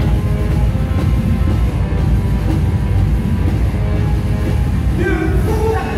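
Loud pop music with a heavy bass beat, played live at a stadium concert during a dance section. A singing voice comes in about five seconds in.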